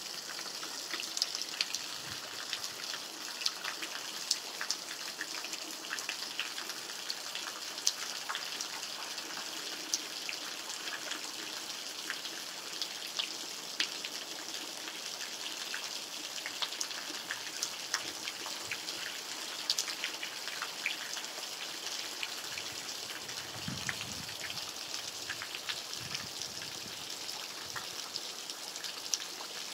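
Steady rain falling, with many separate drops ticking sharply over an even hiss.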